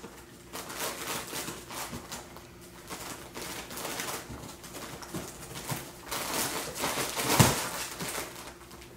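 A small dog rummaging in a cardboard box of plastic-wrapped pillows: crinkling plastic and scraping cardboard, getting busier as it bites and tugs at the box flap, with the loudest rustle about seven and a half seconds in.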